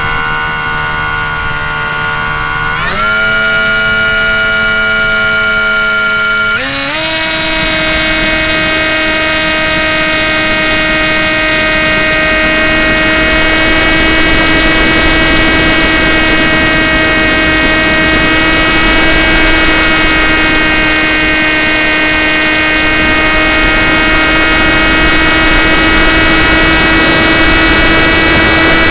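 Model aircraft's motor and propeller heard from the onboard camera: a steady whine that steps up in pitch twice in the first seven seconds as the throttle is opened, then holds at high throttle. Wind rushes over the camera microphone throughout.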